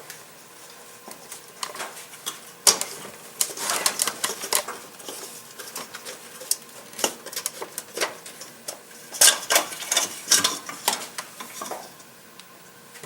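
Metal spring clips and a plastic distributor cap being worked by hand: irregular sharp clicks and light clattering, loudest about three seconds in and again around nine to ten seconds in.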